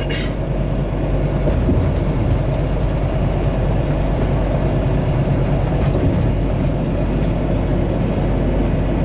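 Semi-truck's diesel engine and tyre noise heard from inside the cab while cruising down the highway: a steady low drone that grows slightly louder after about a second.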